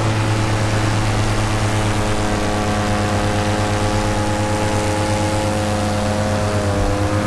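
Paramotor's two-stroke engine and propeller running steadily under power, heard close from the pilot's harness with a steady rush of air. The engine pitch dips slightly for a moment near the end.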